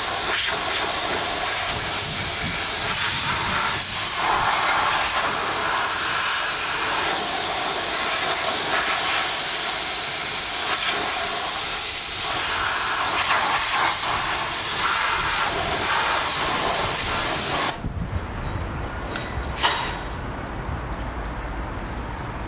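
High-pressure water jet from a pressure-washer lance hissing steadily as it blasts an alloy wheel and tyre, cutting off suddenly about 18 seconds in. A quieter low hum and a couple of clicks remain after it stops.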